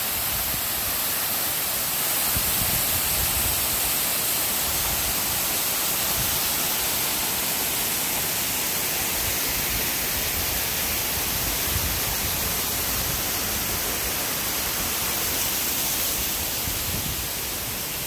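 Steady rushing hiss of a waterfall's falling water and spray.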